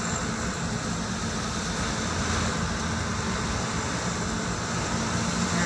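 Steady engine and road noise of a vehicle driving along, heard from inside the cabin, with a low, even hum.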